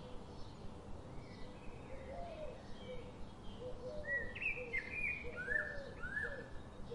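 Small birds chirping: many short chirps and downward-slurred whistles over a steady background hiss, growing clearer from about four seconds in.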